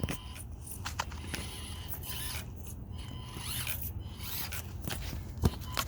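Axial SCX24 mini RC crawler's small electric motor and gears whirring as it drives, with scattered clicks and one sharper knock about five and a half seconds in.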